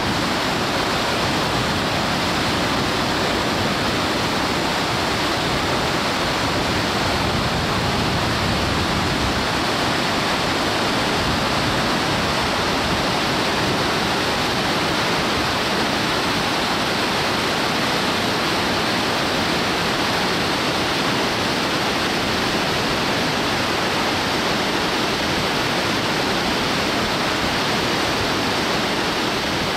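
River whitewater rapids rushing over and around boulders: a steady, unbroken wash of water noise.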